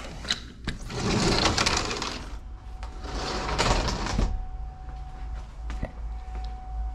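A sliding glass patio door rolls along its track with a rattling scrape, twice, each time lasting one to two seconds. Under it is a low steady hum, and a thin steady tone sets in about four seconds in.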